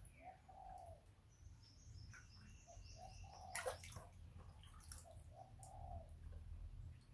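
Faint splashing and sloshing of water in a plastic basin as a young monkey bathes, with one louder splash a little past the middle. Several short, soft calls come in small groups throughout.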